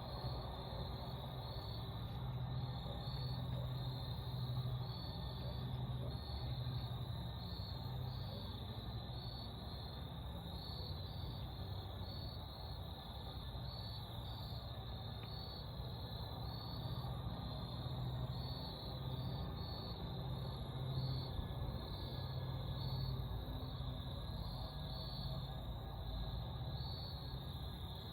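Insects chirping outdoors: a steady, high, evenly pulsing trill over a low steady hum.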